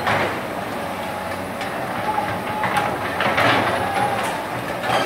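Hydraulic excavator working: its diesel engine running hard, with irregular clattering bursts every second or so.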